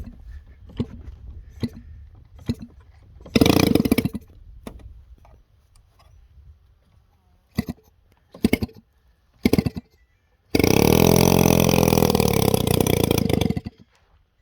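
40cc boxer two-stroke model aircraft engine being started: a few light clicks, then short bursts where it fires and dies. About ten seconds in it catches and runs loudly for roughly three seconds before cutting out suddenly.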